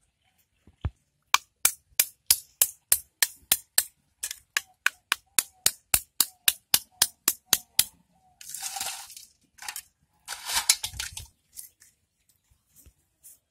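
Sharp, regular cutting strokes of a hand sickle blade, about four clicks a second for several seconds, then two longer scraping, rustling noises.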